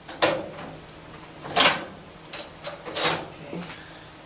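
Model T Ford's four-cylinder engine being turned over by the hand crank to prime it before starting: three short bursts about a second and a half apart with a few small clicks between. The engine does not fire.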